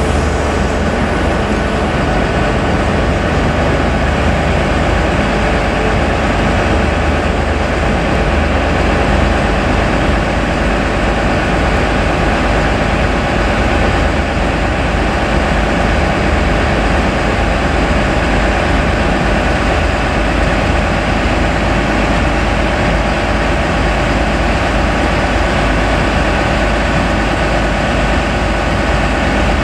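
Diesel train's engines running steadily, a loud, even sound with several constant tones over a low rumble and no rise or fall in pitch.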